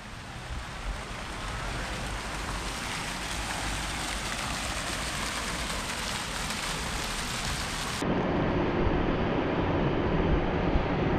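Steady rushing, splashing water noise that fades in, then changes abruptly about eight seconds in to a heavier, lower rumble.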